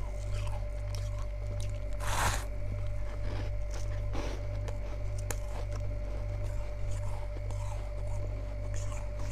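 Chunks of freezer frost being bitten and chewed: one loud crunch about two seconds in, then softer crunches and squishy chewing, over a steady low hum.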